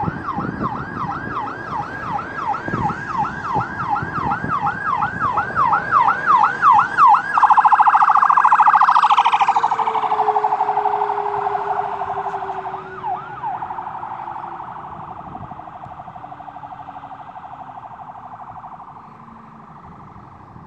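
Ambulance siren passing close by: a yelp of about three rising-and-falling sweeps a second, switching about seven seconds in to a faster warble that is loudest as the ambulance goes by and then fades as it drives away.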